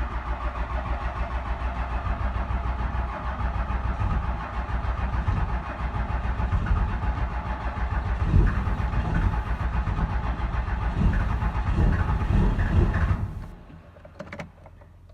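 Cummins 12-valve 5.9 inline-six diesel cranking on the starter in the cold, a long crank of a hard start, with stronger, uneven pulses in the second half as it begins to fire. The starter stops about 13 seconds in without the engine running; the owner suspects the intake grid heater relays are not working.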